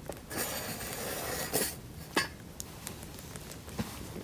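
Pepper seeds being sown onto potting soil in a plastic seedling tray: a rustle of seeds scattering, then a few sharp light clicks.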